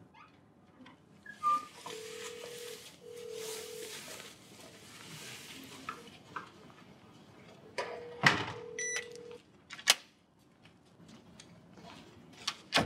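Faint steady electronic tone sounding in three short stretches, with a few sharp clicks and knocks, the loudest about eight seconds in.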